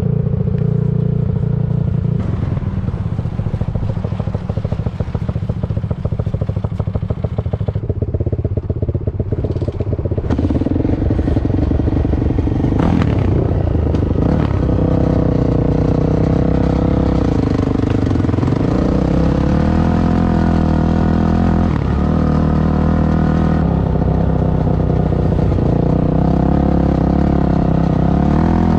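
Yamaha YZ400F four-stroke single-cylinder engine on a three-wheeler conversion, running under load while ridden. The engine note climbs about ten seconds in, then drops and rises again several times as the throttle is worked.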